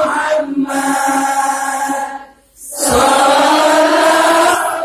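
A congregation chanting a sholawat together in unison, long held sung phrases with a short pause for breath a little past halfway.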